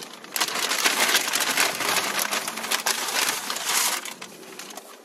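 Dense, crisp crinkling and crunching from a bag of potato chips, close to the microphone, dying away near the end.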